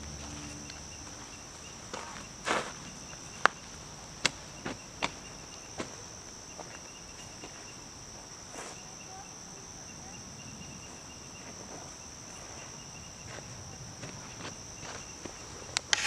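Steady high-pitched drone of summer insects calling. A scattering of sharp, brief clicks comes in the first six seconds and a few more near the end, and a fading music tail sits at the very start.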